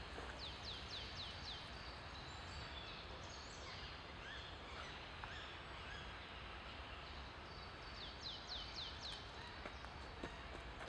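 Small birds calling in woodland over a steady low background rumble. Twice, once about half a second in and again around eight seconds, a bird gives a quick run of about five high falling notes, with other scattered chirps between.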